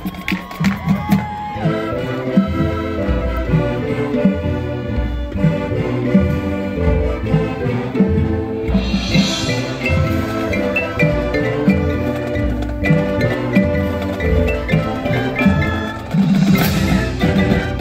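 Marching band playing live: a quieter passage led by the front ensemble's marimbas and other mallet percussion, quick pitched notes over low sustained tones. The full band swells louder near the end.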